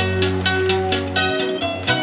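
Background music: plucked-string notes picked in quick succession over a held low bass note, which moves to a new pitch near the end.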